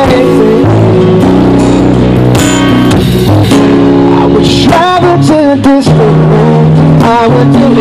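A live rock band playing: a singing voice over guitar and a drum kit, with a steady low line underneath.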